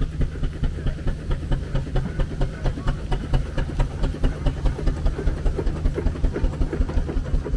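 An engine running steadily, with a regular beat of about five strokes a second over a constant low hum.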